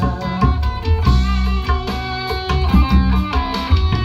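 Electric guitar playing a melodic line over backing music with a steady bass line and a drum beat, with no singing.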